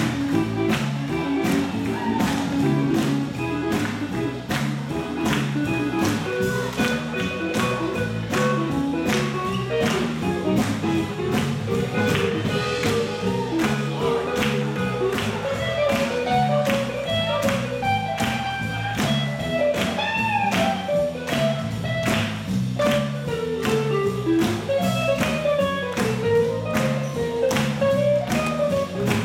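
Live band playing a swing dance number: a steady beat, a stepping bass line and electric guitar.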